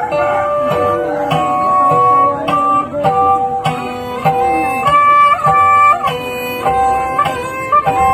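Sundanese tarawangsa music: a bowed tarawangsa fiddle plays a melody of held, sliding notes over the steady plucked notes of a jentreng zither.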